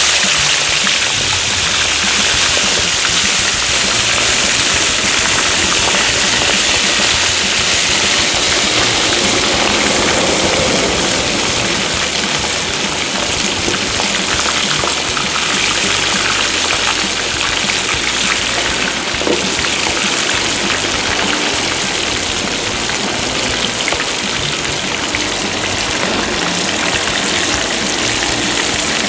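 Seasoned whole guinea pig frying in hot oil in a pan for cuy chactado: a loud, steady sizzle.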